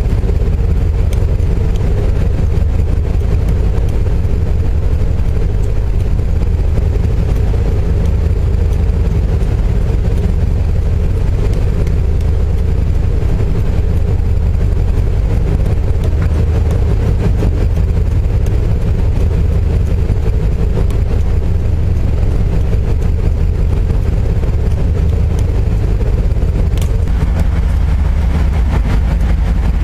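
Steady low drone of a ship's engines, running at constant speed, with a fainter steady hum above it.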